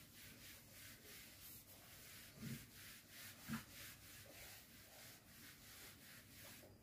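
Faint rubbing of a handheld duster wiping a whiteboard in quick, even back-and-forth strokes, with two soft thuds about a second apart midway.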